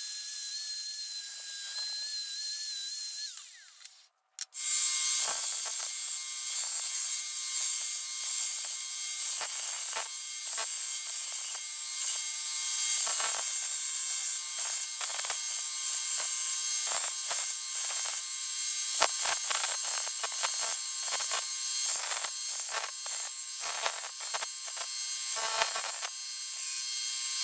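Belt sander running a coarse surface-conditioning belt, with steel pliers held against the moving abrasive. A steady whine comes first; after a brief cut about four seconds in, there is a continuous hiss of the belt rubbing the metal, broken by frequent short scrapes as the piece is pressed and shifted.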